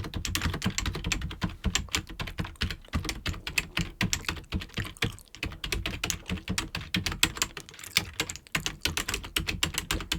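Fast typing on a computer keyboard: a dense run of key clicks, easing briefly about five seconds in before carrying on.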